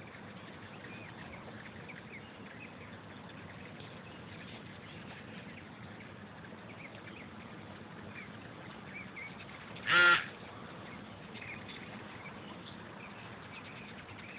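A swarm of hummingbirds at feeders: many short, high chip calls scattered over a steady whirring hum. About ten seconds in, one loud honk-like call lasts under half a second.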